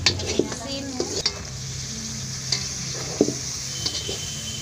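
Vegetables frying in oil in a metal kadhai, with a steady sizzle, while a spatula stirs them and clicks and scrapes against the pan now and then.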